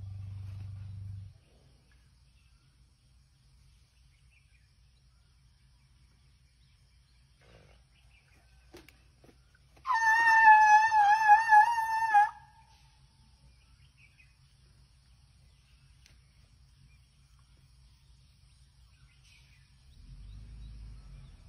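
Asian elephant vocalising: a low rumble that stops about a second in, then a loud, high, wavering squeal lasting about two seconds in the middle, and low rumbling again near the end. This is the elephant's grumbling or 'complaining'.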